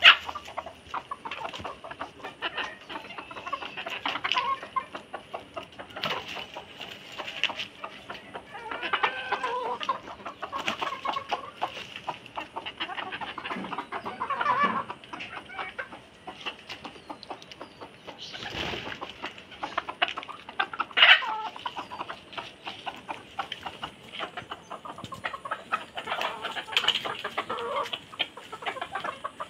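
Chickens clucking while feeding, with many quick clicks of beaks pecking grain off stone.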